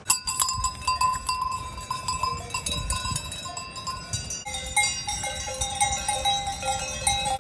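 Several cowbells clanking irregularly, each ringing on at its own pitch, with a new set of tones coming in about halfway through.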